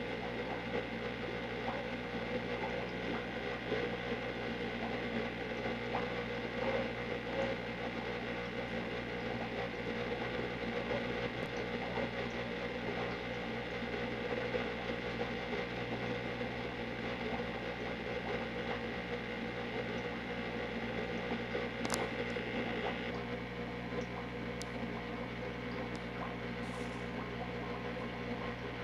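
Steady machine hum with hiss, holding several fixed tones, with a few faint clicks near the end.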